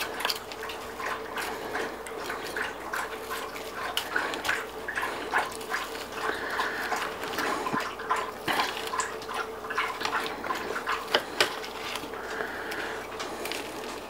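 A Dexter boning knife cutting and scraping raw chicken thigh meat away from the bone on a plastic cutting board: wet squelches with irregular light clicks and taps of the blade, over a steady hum.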